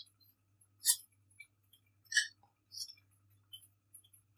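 A metal spatula clinking and scraping against a steel kadhai and a plate while cooked potato-onion filling is scooped out, a few short clinks about a second apart.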